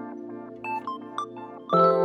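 Background music: sustained keyboard chords with short repeated plucked or mallet-like notes, rising into a louder held chord near the end.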